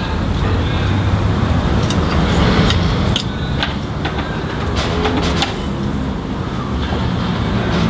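A steel ruler and marker pen tapping and clicking against a metal motorcycle brake disc as hole positions are marked out on it, a handful of short clicks over a steady low rumble.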